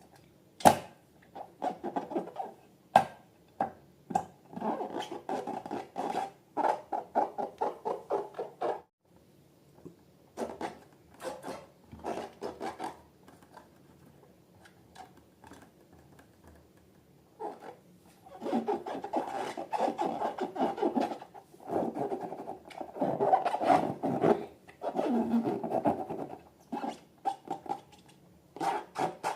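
Slime being squished and stretched by hand, in bouts of sticky crackling and squelching with sharp little clicks. It pauses briefly a few times and is busiest from about two-thirds of the way in.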